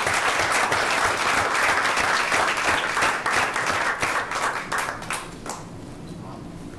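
Room full of people applauding, a dense clatter of clapping that dies away about five to six seconds in.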